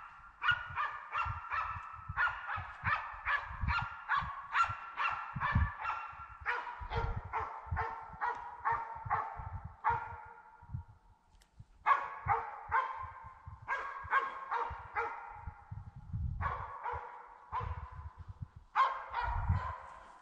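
Hunting dogs barking repeatedly in runs of about two to three barks a second, with short pauses between runs: hounds giving tongue as they work the drive on a driven wild boar hunt.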